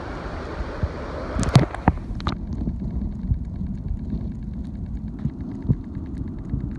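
Stream water heard through a submerged camera: a few sharp splashes about one and a half to two seconds in as it goes under, then a muffled low rumble of moving water with faint, fast ticking.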